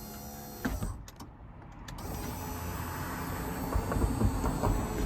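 Power window motor of a first-generation Toyota Tundra Double Cab rear window running steadily as the glass closes in one pass, with no mid-way stop now that the stop connector is unplugged. The glass seats with a knock under a second in. From about two seconds in a louder, low, rough rumble takes over.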